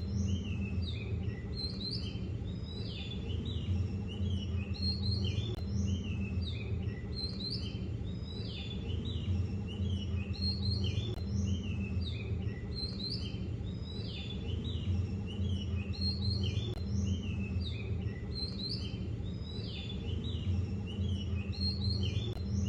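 Small birds chirping and twittering continuously, many short rising and falling calls overlapping, over a steady low hum.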